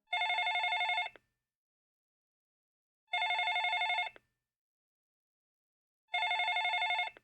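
Telephone ringing: three warbling electronic rings, each about a second long and about three seconds apart.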